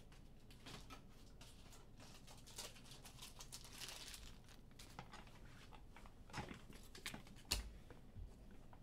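Faint crinkling and scattered light clicks of trading cards and pack wrappers being handled, with one sharper click about seven and a half seconds in.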